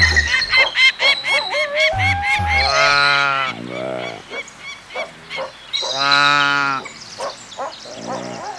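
Rapid repeated bird chirps, then two long, drawn-out calls from a larger animal about three seconds apart, each trailing off lower.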